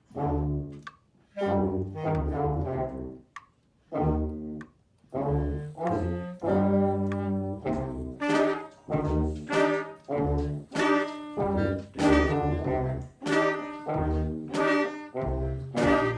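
School wind band playing short, detached chords with strong low notes. The chords are spaced by pauses at first, then come as a steadier pulse of accented notes from about five seconds in.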